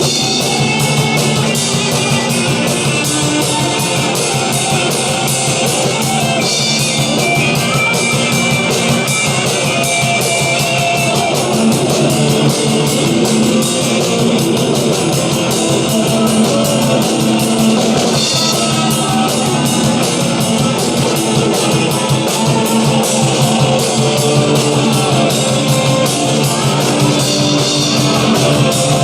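Rock band playing, with drum kit and guitar carrying the song at a steady loud level.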